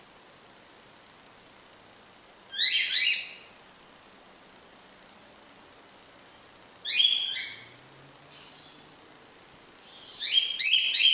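Cockatiel chirping in three short bursts of quick chirps: about two and a half seconds in, around seven seconds, and a longer run near the end.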